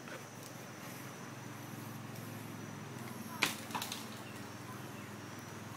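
A Thai Ridgeback dog eating a snack off a tiled floor: one sharp crunch about three and a half seconds in and a couple of smaller ones just after, over a steady low hum.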